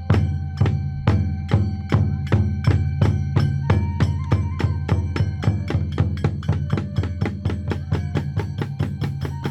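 Kagura ensemble: drum and small hand cymbals beat a rhythm that quickens from about two strokes a second to about five, while a transverse flute holds long notes that step in pitch.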